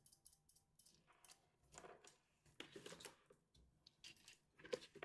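Near silence with a few faint, scattered handling clicks and rustles.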